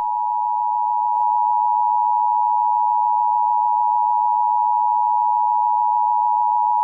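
Emergency alert attention signal: a steady electronic two-note tone held without a break, with a faint click about a second in, after which it is slightly louder. It marks the start of an alert broadcast.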